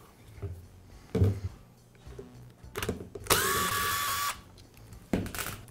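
A cordless power driver runs for about a second with a steady whine, then stops abruptly, backing out a screw from the front gear case of a Milwaukee impact wrench. A few short knocks and clicks of tool handling come before and after it.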